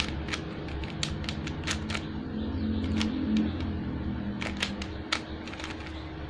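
Cheap plastic 3x3 Rubik's cube being turned by hand: its layers click and clack in irregular quick runs.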